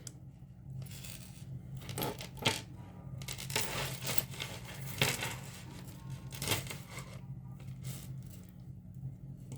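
Costume jewelry clicking and jingling as it is handled: a necklace of plastic beads and metal chain being turned over and sifted through, giving irregular small clicks and rattles.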